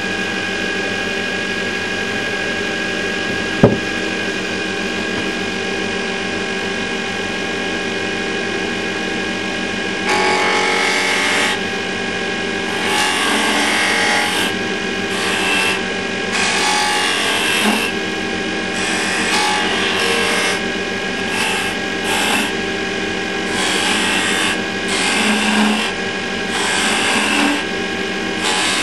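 Axminster wood lathe running with a steady motor hum, with a single sharp knock a few seconds in. From about ten seconds in, a hand-held turning chisel cuts the spinning wooden candlestick blank in short, repeated passes, each a scraping rush of tool on wood.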